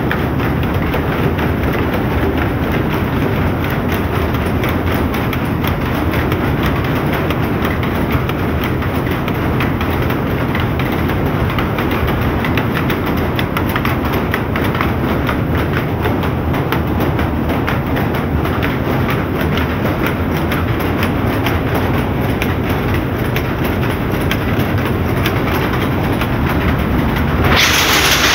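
Shuttle powerlooms weaving, a dense, steady mechanical clatter of many rapid knocks from the shuttles and beating reeds. A louder hiss comes up near the end.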